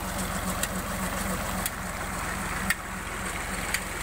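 Diesel tractor engine running steadily, driving a belt-driven irrigation water pump, with water gushing from the pump's outlet pipe into a concrete tank. Sharp ticks come through roughly once a second.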